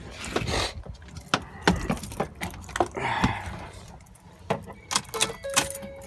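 Keys jangling with a series of clicks and knocks as someone gets into the truck and handles the key, then a steady electronic warning chime starts near the end.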